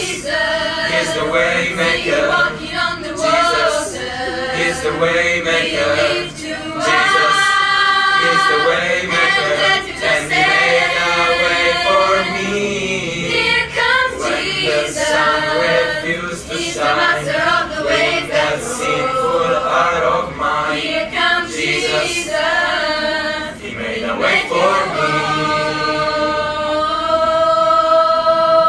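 Mixed choir of young female and male voices singing a song in harmony, closing on a long held chord near the end.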